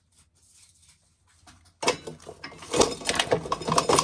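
Shelling an ear of dried corn: after a quiet start, a sudden dense clatter of hard kernels rattling and dropping begins a little under two seconds in and keeps going.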